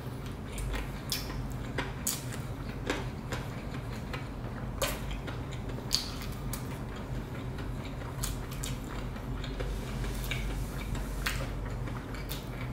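Close-up eating sounds: irregular small clicks and smacks of chewing a fried chicken wing, over a steady low hum.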